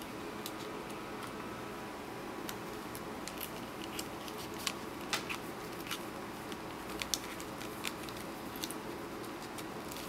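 Faint, irregular small metal clicks and scrapes of a titanium quick-release fob and its split ring being worked onto a key ring by hand, over a steady low background hiss.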